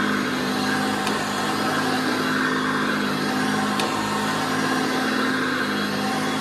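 Early-1980s Hoover Concept One upright vacuum cleaner running steadily, its motor humming under a constant rush of air.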